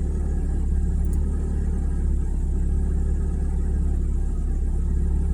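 1997 Mazda Miata's 1.8-litre four-cylinder engine idling with the air-conditioning compressor switched on. It makes a steady low rumble of even firing pulses on an engine whose owner complains of a rough idle.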